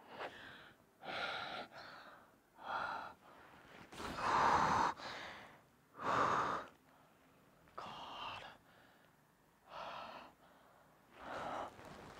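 A man gasping and breathing heavily in distress: about nine ragged, partly voiced breaths one to two seconds apart, the loudest about four seconds in.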